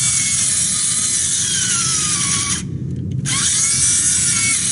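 Cordless drill driving screws into treated pine boards: the motor whine sinks in pitch as the screw bites, stops briefly about two and a half seconds in, then spins up again for the next screw.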